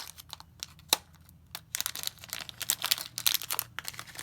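Small accessory package being opened by hand: irregular crinkling and crackling of the packaging, with a sharp click about a second in and the crinkling at its densest in the second half.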